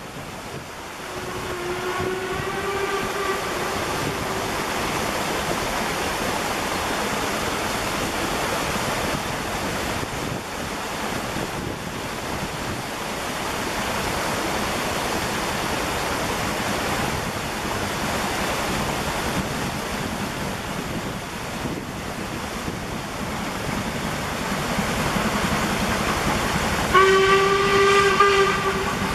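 Steam locomotive approaching and passing with a train of coaches, its running noise growing louder. Its whistle sounds for about two seconds soon after the start, then again, much louder, near the end as it draws level.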